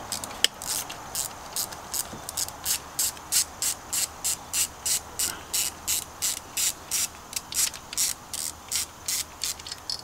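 Ratchet wrench with a 10 mm socket being worked back and forth to undo an ignition coil's hold-down bolt. Each back-stroke gives a short run of pawl clicks, about three strokes a second, steady throughout.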